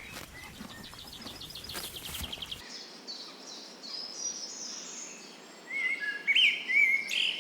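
Wild birds singing: a rapid ticking trill, then series of short chirped notes, with clear whistled phrases growing louder near the end. Faint rustling and clicks are heard under the first part.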